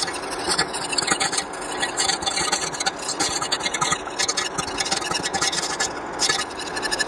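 Wire whisk beating a thin white sauce in a stainless steel saucepan: rapid, steady scraping and clicking of the wires against the pan bottom and sides, keeping the sauce moving as it heats toward a boil.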